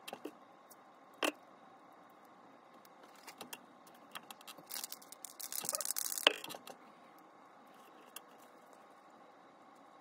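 Aerosol spray can hissing in short bursts for about a second and a half, ending with a sharp click. A few light handling clicks and taps come before it.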